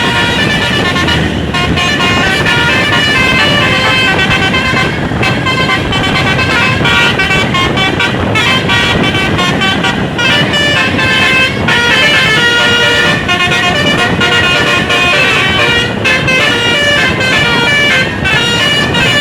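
Bus's basuri (telolet) musical horn playing a tune of quick stepped notes, with engine and road noise underneath.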